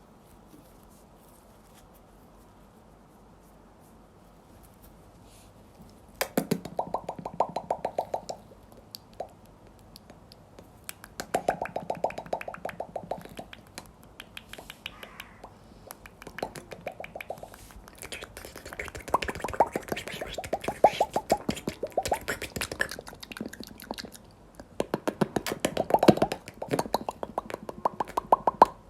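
Slime being squeezed and worked close to the microphone, giving bursts of rapid wet popping and crackling. The sound starts about six seconds in, after a faint hiss.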